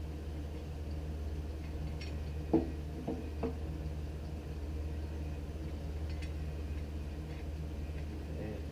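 Cajon pedal hardware being handled: a sharp knock about two and a half seconds in, two lighter knocks just after, and a few faint clicks, over a steady low hum.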